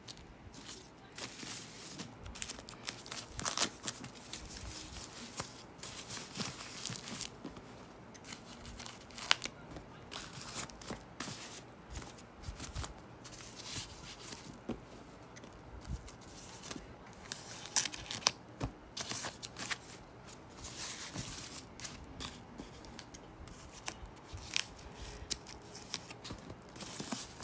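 Scissors snipping and tissue paper and foam packing wrap crinkling as protective wrapping is cut off a leather bag's handle straps, in many irregular short snips and rustles.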